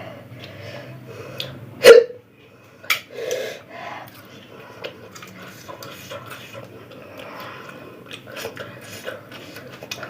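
A woman's sharp, loud hiccup about two seconds in, followed a second later by a shorter click and a softer vocal sound. Quiet breathing and mouth sounds fill the rest.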